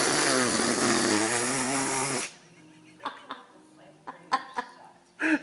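A long, loud, raspy fart sound with a wavering pitch that cuts off suddenly about two seconds in. A few soft clicks follow, and a brief voice is heard near the end.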